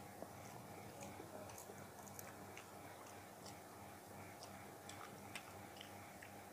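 Faint eating sounds: a man chewing a mouthful of fried rice, with scattered soft, irregular mouth clicks and smacks while his fingers mix rice on a steel plate.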